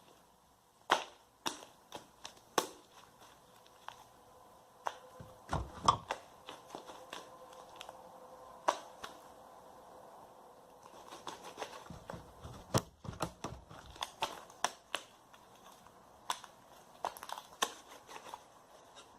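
Sticky homemade slime being kneaded and squeezed by hand, giving irregular sharp clicks and pops as air pockets burst in it. This is the hand-activation stage, with the slime still too sticky to hold its shape.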